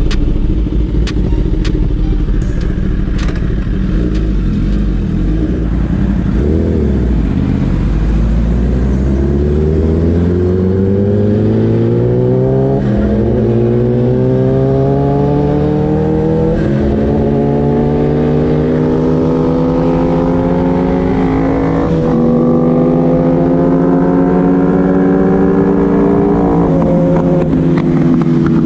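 Kawasaki ZX-10R's inline-four engine from the rider's seat, first running steadily, with a few sharp clicks at the start and a quick rev about a quarter of the way in. It then pulls hard through the gears, the pitch climbing in long sweeps and dropping at each of four upshifts.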